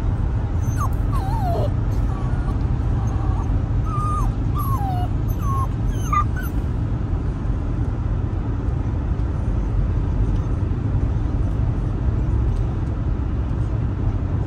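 Eight-week-old Rottweiler puppy whimpering: a run of about six short whines, most falling in pitch, in the first half, then stopping. Under it the steady low rumble of a moving car's cabin.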